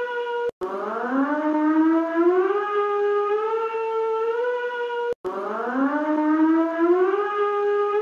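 Civil-defence warning siren wailing: the tone breaks off abruptly twice, each time starting again low and climbing over two to three seconds to a steady high wail.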